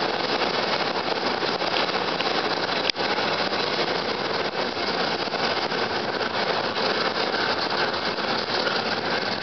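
Steady running noise inside a San Francisco streetcar under way, with a brief dropout about three seconds in.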